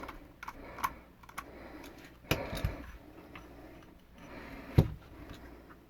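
Small clicks and knocks of a Smith & Wesson 6904 pistol and its Hogue rubber grip panels being handled while the screw holes are lined up, with a few sharper knocks, the loudest about five seconds in.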